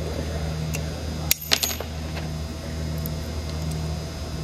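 A few light metallic clinks as a hammer and a hinge pin are set against a steel ball-bearing door hinge, with a brief ring about a second and a half in. A low steady hum runs behind.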